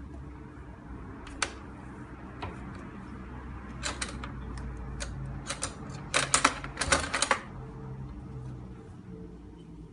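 Metal cutlery clinking and rattling as a small child rummages through it. There are scattered single clicks, a few clinks about four seconds in, and a quick run of clatter between six and seven seconds, the loudest part. A low steady hum runs underneath.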